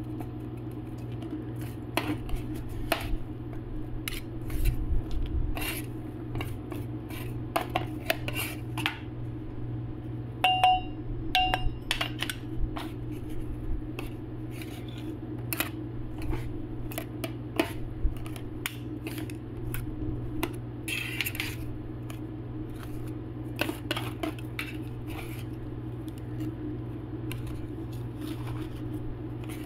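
Two steel spatulas chopping and scraping frozen ice cream on a stainless steel cold plate: irregular sharp metal clicks, taps and scrapes, with a short ringing clink now and then, over a steady low hum.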